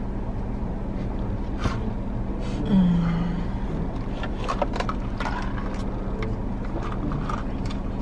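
Steady low hum of the car running, heard inside the cabin, with a woman giving a short hummed 'mmm' moan over her drink about three seconds in, and scattered light clicks as she sips through a straw from a plastic cup.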